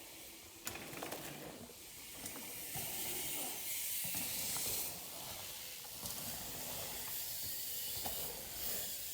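Steady rushing hiss of wind and tyres as BMX bikes roll through dirt jumps, swelling a few seconds in, with a few light knocks.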